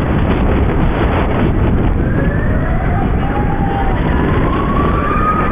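An emergency vehicle siren wailing, its pitch rising slowly from about two seconds in, over heavy wind noise on the microphone.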